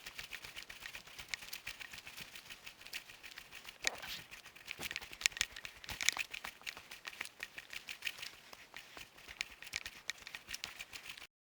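Faint, irregular crinkling and crackling clicks, a few sharper than the rest, cutting off suddenly near the end.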